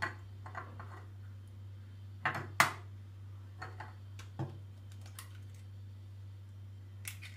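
Short, sharp clicks and knocks of kitchen handling: hands on a plastic blender jar and a hen's egg being cracked open, the loudest knock about two and a half seconds in. A steady low hum runs underneath.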